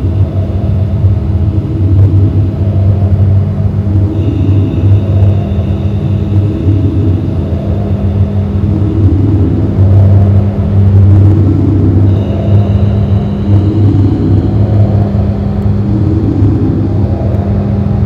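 Loud, looped electronic noise drone played through a PA loudspeaker: a steady low hum with a swell that repeats about once a second, and thin high tones that come in about four seconds in and again near twelve seconds.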